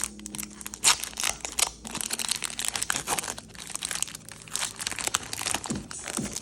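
A foil booster-pack wrapper being torn open and crinkled by hand, with a rapid run of sharp crackles.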